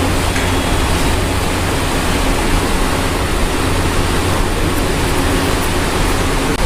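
Steady rushing air noise with a heavy low rumble, like a fan's airflow buffeting the phone's microphone.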